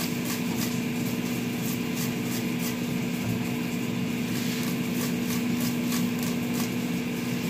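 Cucumber rubbed against a stainless steel cone grater in quick repeated rasping strokes, fainter for a stretch in the middle, over a steady mechanical hum.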